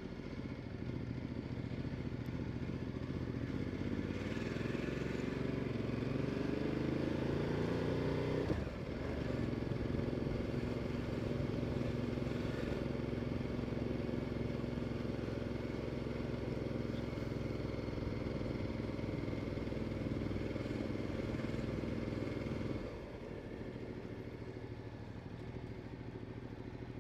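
Ducati Multistrada 1260 S's V-twin engine running under way: the revs climb for a few seconds, drop sharply about eight and a half seconds in, hold steady for a long stretch, then fall back and go quieter near the end.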